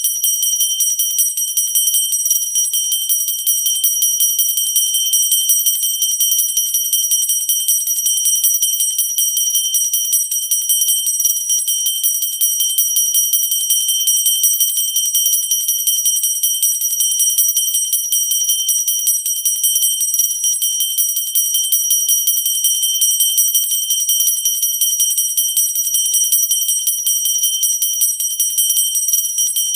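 Pooja bell (puja handbell) rung without a break: a steady, high ringing, its clapper striking many times a second.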